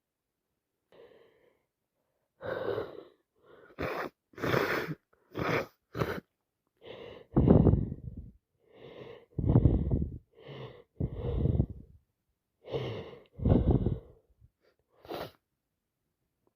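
A woman with a heavy head cold in a run of sneezes: quick gasping breaths in, each followed by a louder sneeze. There are about fifteen bursts in all, and the four loudest come in the second half, each right after a gasp.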